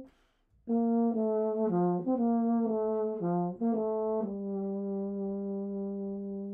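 Unaccompanied euphonium: a short breath, then a quick run of a dozen or so notes moving up and down, settling about four seconds in onto a long held low note.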